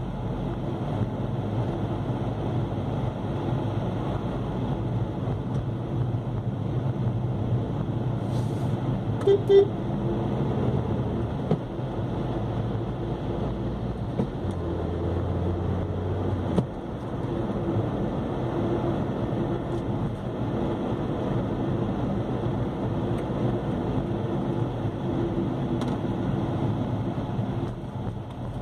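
Steady engine and road noise from a vehicle driving through city traffic, heard from inside it. About nine and a half seconds in, a horn gives two short toots.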